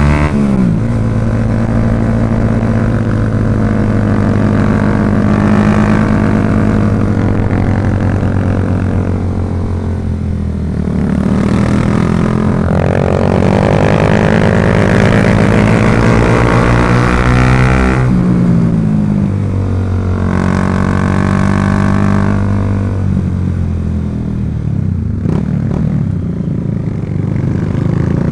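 Motorcycle engine running under way, its pitch climbing and dropping several times as the rider works the throttle and gears.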